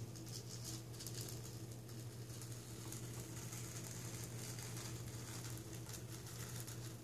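Fingers scratching and picking at a sticker on a laptop's plastic screen bezel to lift its corner: faint, quick scratching and clicking over a steady low hum.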